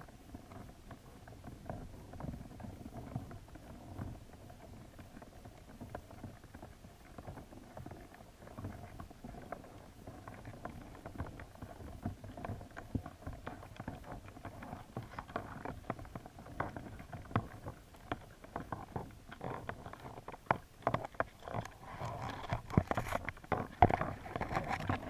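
Muffled underwater sound through a GoPro's waterproof housing, with scattered clicks and taps that grow busier and louder in the second half. The taps fit American signal crayfish moving and scraping about on the plastic mesh of the trap.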